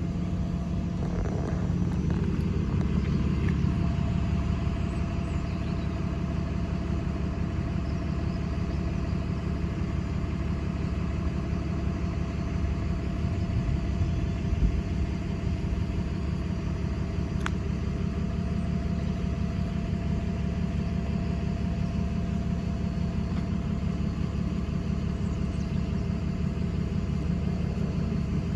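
Car engine idling steadily: a continuous low hum.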